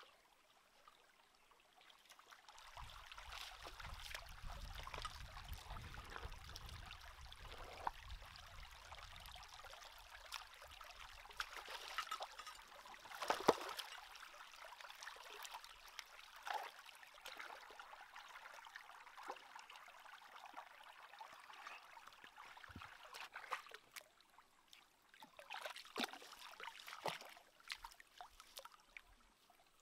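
Shallow stream trickling over rocks, with scattered splashes and knocks as someone wades and works with hands in the water; the sharpest splash comes about halfway through.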